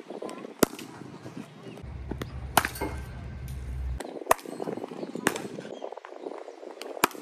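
About five sharp knocks from cricket net practice, a ball being struck and landing, spaced a second or two apart.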